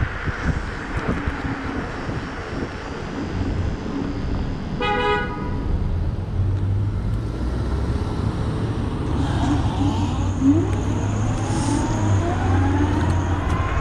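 Street traffic and road rumble heard while riding, with one short vehicle-horn toot about five seconds in. Several rising whines follow near the end.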